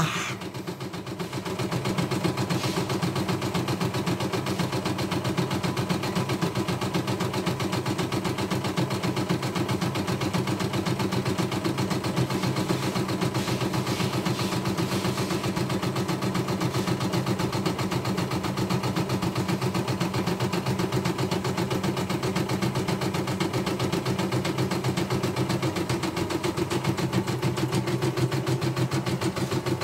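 CNY E960 portable embroidery machine stitching a design, its needle running in a fast, even rhythm. It dips briefly just after the start, then runs steadily.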